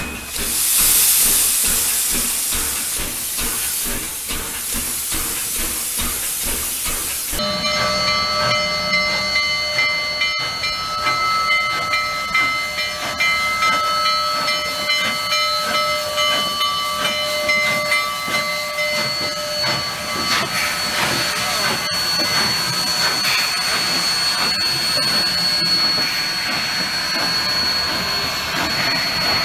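Union Pacific 844, a 4-8-4 steam locomotive, with a loud hiss of steam that cuts off suddenly about seven seconds in. Then comes a steady whistle of several tones at once over pulsing exhaust, lasting about twelve seconds. After that come the rolling noise and clatter of the tender and trailing cars passing.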